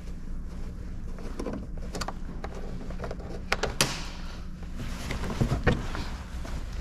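Scattered clicks and knocks of a screwdriver and a car's plastic door trim being handled as the door panel's Torx screws are undone, loudest in a cluster near the end, over a steady low hum.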